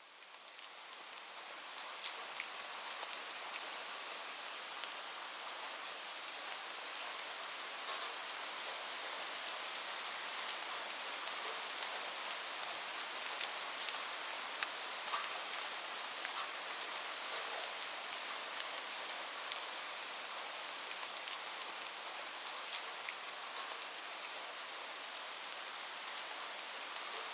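Steady rain falling, an even hiss with many distinct drops ticking on a surface. It fades in over the first couple of seconds.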